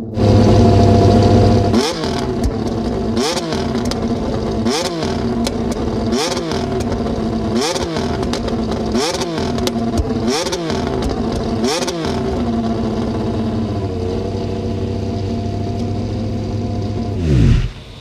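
McLaren MCL36's Mercedes 1.6-litre turbo-hybrid V6 Formula 1 power unit running for the first time: it idles, is blipped about eight times in quick succession, each rev rising and falling, settles back to idle, then is shut off near the end as the pitch sags away.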